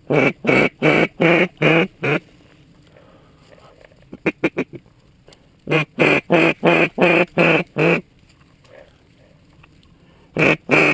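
Mallard duck call blown in loud, close runs of quacks: about six evenly spaced quacks, then a quick burst of feed chatter, another run of about six quacks, and a new run starting near the end.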